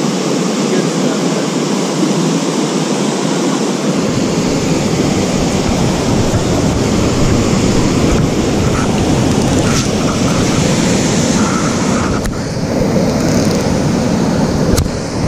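Rushing river water pouring over rocks in a cascade, a steady loud noise. A deeper low rumble joins about four seconds in.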